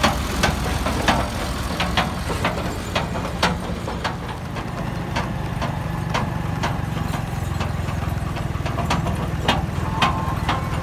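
Ford 3600 tractor engine running steadily while towing a wheat thresher, with sharp, irregular clacks every half second to second and a half from the rig rattling along the road.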